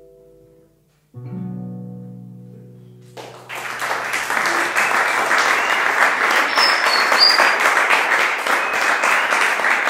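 Acoustic guitar's last notes ring out and fade, a final chord is struck about a second in and left to ring, and about three seconds in an audience breaks into applause that carries on to the end.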